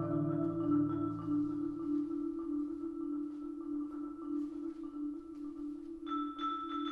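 Marimba played by several players in a hocket, sharing one repeated note in a steady pulse while lower notes fade away. About six seconds in, a higher ringing struck tone joins and repeats.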